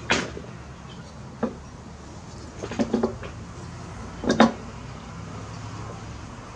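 Metal clunks and clinks from a Briggs & Stratton engine's finned flywheel as it is worked down onto the crankshaft and lined up with its key: a knock at the start, another about a second and a half in, a quick cluster near three seconds and the loudest double knock a little later.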